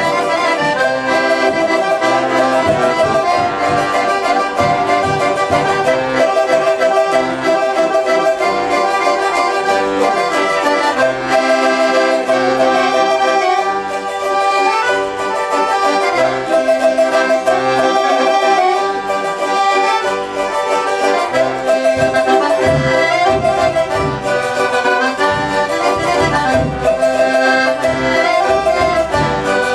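Accordion playing a traditional Portuguese folk tune, with sustained chords and melody.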